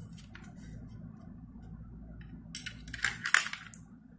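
A coin clicking and rattling against metal as it goes into a vending machine's coin acceptor: a quick cluster of sharp metallic clicks between about two and a half and three and a half seconds in. A steady low hum runs underneath.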